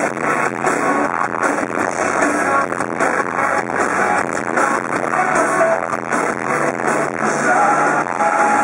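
Live rock band performing, with vocals over loud drums, guitars and bass, recorded from the audience so the sound is distorted and boomy. Drum hits land at a steady beat.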